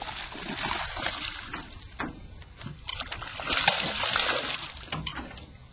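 Water splashing and sloshing at the surface in two spells, the second louder.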